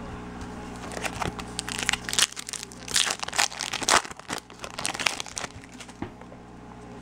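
Foil wrapper of a baseball card pack crinkling and tearing as hands pull it open. A dense run of crackles thickens in the middle and dies away about five and a half seconds in.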